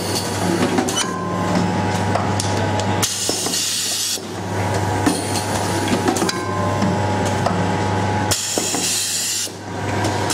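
Rotary cup filling and sealing machine running, with a steady hum and scattered metallic clicks and knocks from its turntable and sealing head. Twice, about three seconds in and again near the end, a burst of air hiss lasts about a second.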